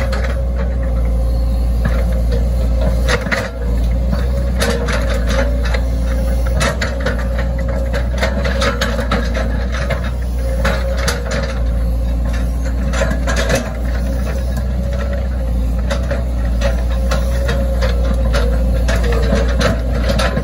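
Hitachi ZX110 excavator's diesel engine running steadily with a constant whine, while the steel bucket teeth scrape and dig through wet soil and roots, giving many short knocks and rattles.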